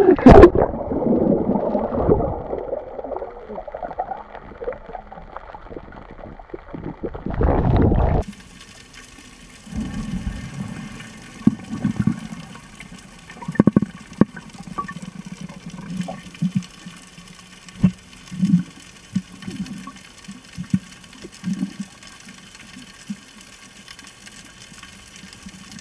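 Muffled water sounds picked up by an action camera at and under the sea surface. Dull sloshing and splashing come first. About eight seconds in it switches to thin underwater hiss with faint steady tones and scattered bubbling gurgles from a diving swimmer.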